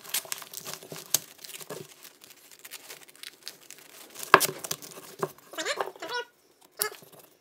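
Hands threading a nylon strap through the slots of a semi-rigid tactical-cloth Molle panel and around a hatchet handle: scattered rustling, crinkling and short scratchy rips of fabric, with one sharp tap a little past halfway.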